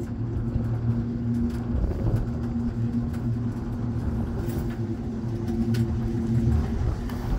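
Aerial cable car heard from inside the cabin: a steady low rumble with a held low hum, and a few faint clicks about halfway through as the car passes a support tower.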